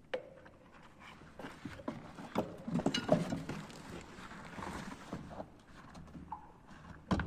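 Irregular knocks, scrapes and clicks of PVC pipe and fittings being handled and pushed together during a solvent-cement pipe joint repair, with a sharp click near the end.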